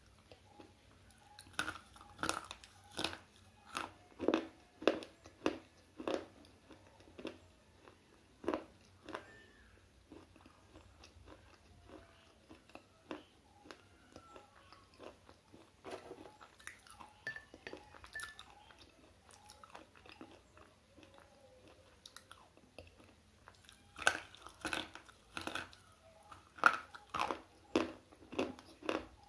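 Slate pencil being bitten and chewed close to the microphone: a quick run of sharp, brittle crunches for the first several seconds, softer chewing through the middle, then another run of loud crunches near the end.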